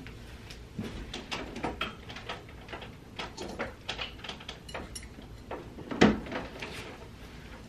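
Mirrored jewelry cabinet door being handled, with a run of small clicks and rattles and one sharp knock about six seconds in, the loudest sound.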